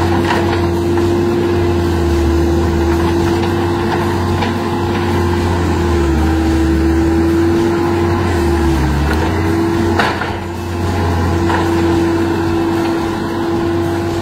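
John Deere skid-steer loader's diesel engine working under load with a steady whine while it pushes over a tree stump. The pitch shifts slightly as the load changes, and there is a single sharp crack about ten seconds in.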